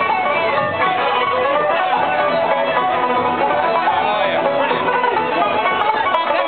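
Live band music with guitar and other plucked strings, playing continuously at a steady loudness.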